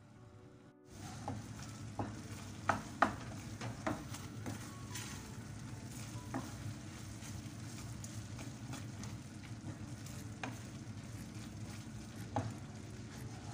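Wooden spoon stirring and scraping chicken curry in a non-stick frying pan, knocking against the pan now and then, over the steady sizzle of the thick sauce cooking. It starts about a second in, with the sharpest knocks around three seconds in.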